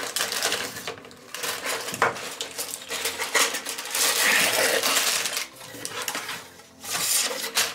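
A cardboard Lego Technic box being opened and shaken out: plastic bags of Lego pieces rattle and clatter, with crinkling plastic and cardboard handling, in irregular clicks and rustles.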